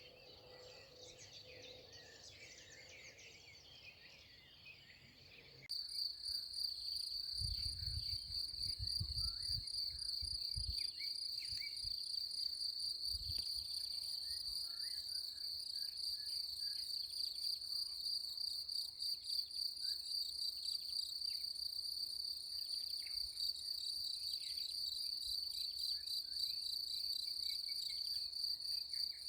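Birdsong for about the first six seconds, then an abrupt switch to a cricket's loud, steady, rapidly pulsing high-pitched trill, with faint bird calls behind it. Low rumbles, likely wind on the microphone, come a few seconds after the switch.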